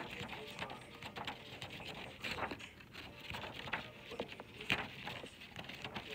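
Paper being handled: soft, irregular rustles and small taps.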